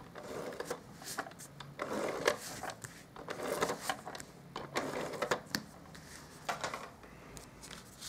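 Cardstock being handled on a craft table: scattered paper rustles and slides with light taps and clicks.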